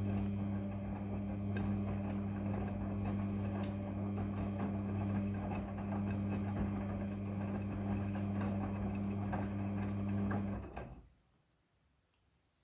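Front-loading washing machine running with a steady low hum, which dies away quickly about eleven seconds in.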